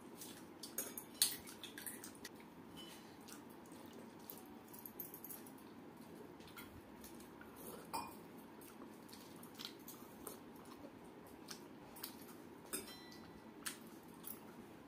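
A hand working water-soaked rice (pakhala) in a steel bowl and picking food from a brass bowl, with scattered light clinks and clicks of metal, the loudest about a second in.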